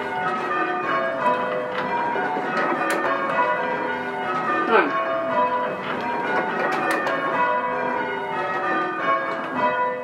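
Six church bells rung in changes, struck one after another in quick succession with their ringing tones overlapping. About halfway through there is a short squeak that falls in pitch.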